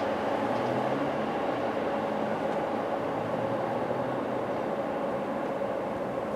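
Keikyu electric train running past at a level crossing: a steady train running noise with no breaks.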